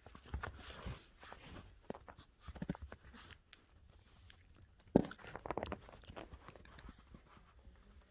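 Scattered rustling and small knocks of handling and movement, with one louder thump about five seconds in.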